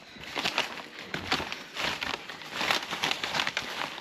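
Packaging rustling and crinkling in irregular bursts as a parcel is unwrapped.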